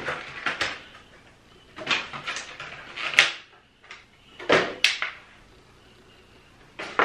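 Product packaging being handled as a small baby gadget is unboxed: a handful of short clacks and rustles, spaced about a second apart.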